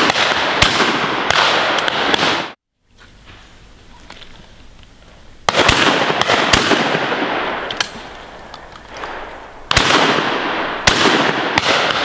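Repeated shotgun shots at high driven pheasants, each a sharp crack that trails off in a long echo; some shots are close and loud, others fainter. The sound cuts out briefly about two and a half seconds in.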